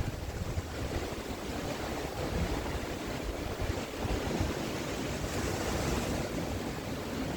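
Sea waves breaking and washing up on a shore, a steady surf hiss that swells about five seconds in, with low wind rumble on the microphone underneath.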